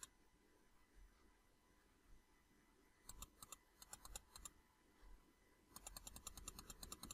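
Faint computer mouse clicks. A few scattered clicks come about three to four and a half seconds in, then a quick, even run of clicks near the end as a scroll-bar arrow is clicked repeatedly.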